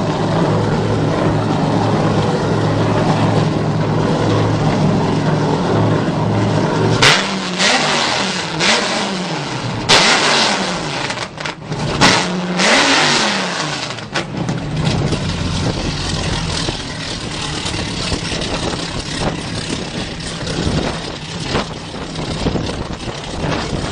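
Cinzano speedboat's engine idling steadily, then revved hard in three sharp blips over several seconds, its pitch rising and falling with each. It then settles back to a steady idle.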